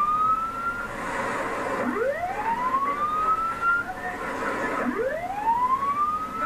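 A patrol ship's alarm siren wailing in repeated rising sweeps, each climbing for about two seconds and starting again about every three seconds, as the ship collides with a fishing trawler. It is heard through a TV set's speaker.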